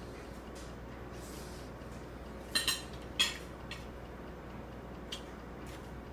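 Toddler's plastic spoon clinking against a porcelain bowl while eating: a few sharp clicks, three loud ones close together about two and a half to three seconds in, then a couple of fainter ones, over a steady low hum.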